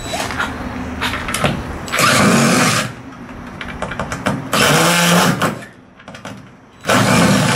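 Cordless drill-driver running in three short bursts of about a second each, driving out screws.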